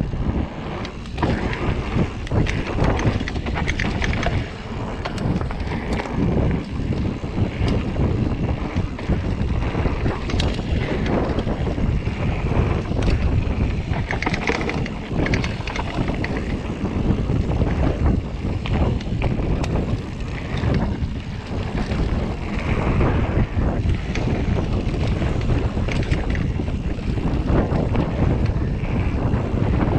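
Mountain bike descending a rough dirt trail at speed: tyres rumbling over dirt and stones, with frequent knocks and rattles from the bike over bumps. Wind buffets the microphone.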